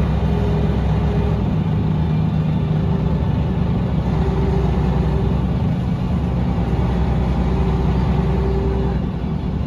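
Mercedes-Benz O405NH bus heard from inside the cabin while under way: steady engine rumble with ZF automatic gearbox and hub-reduction axle noise, including a whine that comes and goes. The sound drops a little near the end.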